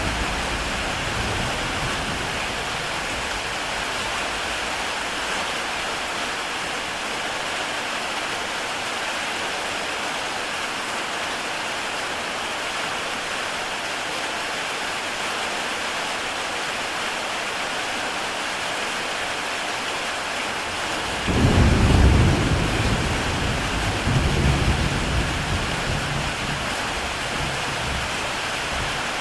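Heavy rain falling steadily on a tile roof, an even hiss. About two-thirds of the way through, a roll of thunder rumbles in suddenly, swells twice and dies away.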